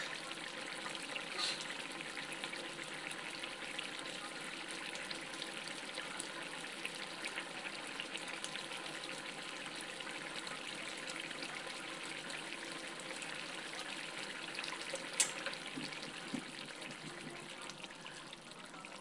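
Potato and eggplant soup simmering in a metal pot, a steady bubbling and popping. Two sharp clicks stand out, about a second and a half in and again about three-quarters of the way through.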